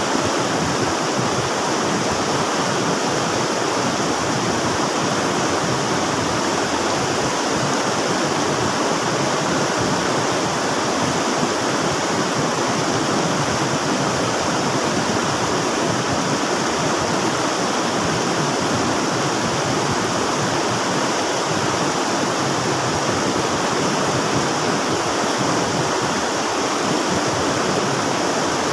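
River water rushing steadily, an even, unbroken flow with no distinct splashes or changes.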